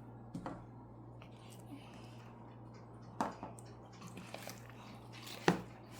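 Faint, scattered squishes and small clicks of slime being pressed and worked over a toy, with sharper clicks about three seconds and five and a half seconds in.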